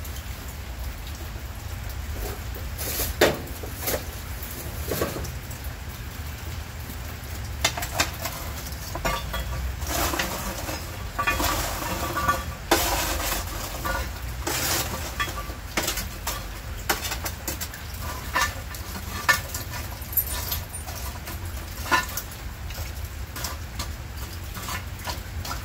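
Hot charcoal coals being moved and set on and around a cast-iron Lodge camp Dutch oven: scattered clinks and knocks of coal and metal, over a steady patter of rain.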